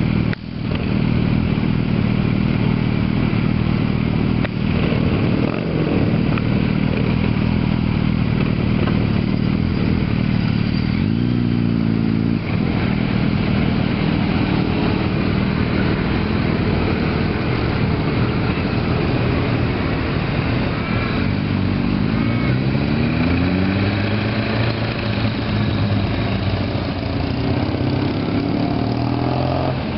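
Several motorcycles running as they pull away one after another, engines rising in pitch as they accelerate, once about eleven seconds in and again in a longer climb a little past twenty seconds.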